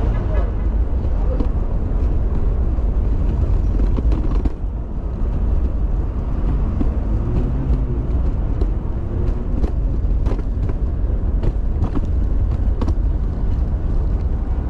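Steady low rumble from a cat stroller being pushed along a city sidewalk, its wheels rolling over the pavement and jostling the recording phone, with scattered clicks and knocks.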